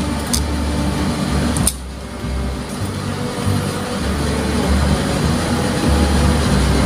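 Background music with a deep bass line whose notes change every second or so.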